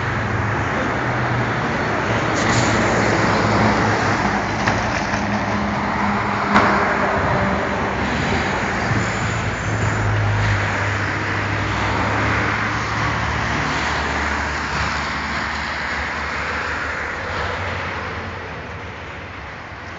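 SKD electric minibus driving slowly out of a garage and past: tyre and road noise with a low hum that comes and goes, and a single short knock about six and a half seconds in.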